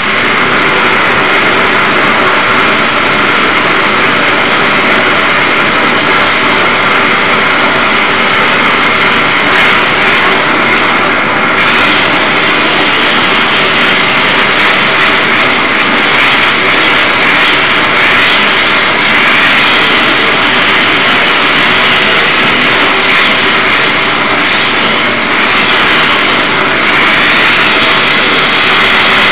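Blowtorch flame burning with a steady, loud rushing noise as it heats the water pot of a Hero's steam engine (aeolipile) to raise steam.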